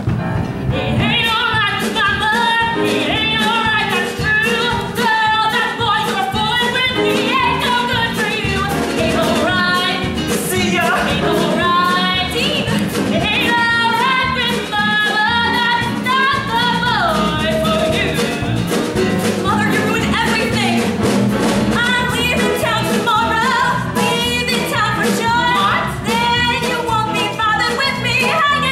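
Song from a live stage musical: a solo voice singing over instrumental accompaniment, at a steady level throughout.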